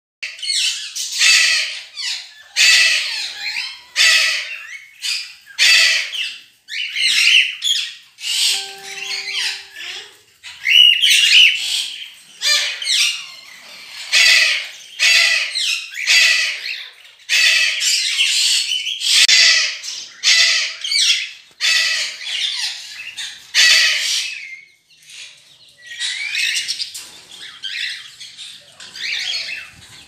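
Parrot squawking harshly over and over, roughly one call a second.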